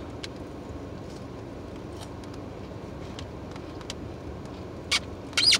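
A person chewing fried fish, with a few faint mouth clicks and two short, sharper mouth sounds near the end, over a steady hum inside a car.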